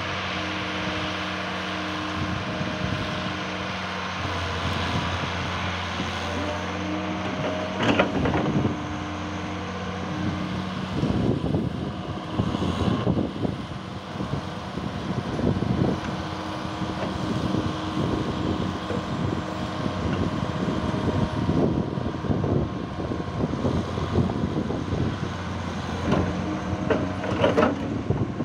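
Waryński M-150H tracked hydraulic excavator's diesel engine running while it digs. The note is steady at first, then goes rough and uneven as the engine works under hydraulic load. Sharp knocks come about eight seconds in and near the end.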